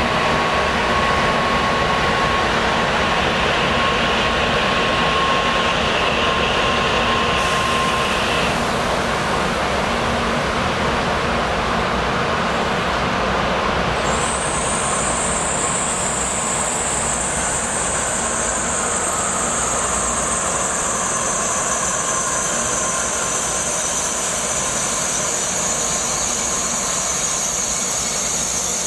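Steady running noise of a Tokaido Shinkansen train, with a high thin whine joining about halfway through.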